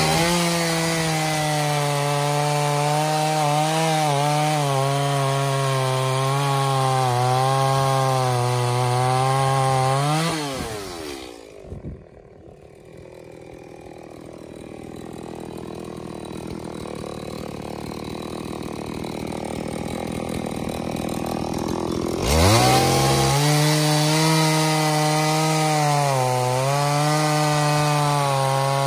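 Stihl MS 180 chainsaw's small two-stroke engine running at high revs with a wavering note. Its revs drop away about ten seconds in and stay much quieter for some ten seconds. Then it revs back up about twenty-two seconds in and runs hard again.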